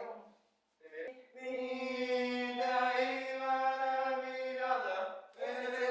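A person's voice holding one long, steady chanted note for about four seconds after a brief silence, then breaking off near the end.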